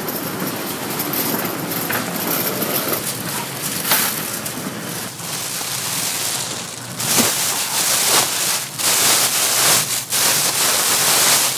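Hotteok cooking on a street-stall griddle: a steady sizzling hiss with a few short knocks and clatters, growing louder about seven seconds in.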